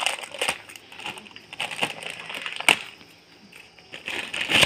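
Plastic packaging bag crinkling and rustling in the hands as an accessory is unwrapped from it, with irregular sharp crackles, a louder one midway and another at the end.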